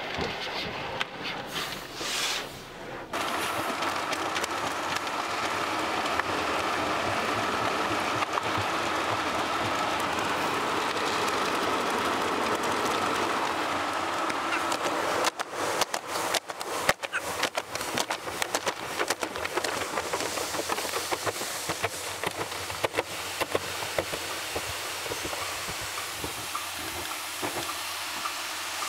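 Automatic car wash heard from inside the car: water spray hisses steadily on the windows and body. From about halfway, the cloth brushes slap and knock against the car in quick, irregular strokes.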